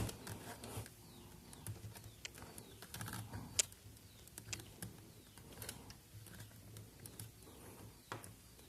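Faint scattered plastic clicks and taps from a laptop's bottom casing being pried open, with a sharper snap right at the start and a few more louder clicks spread through.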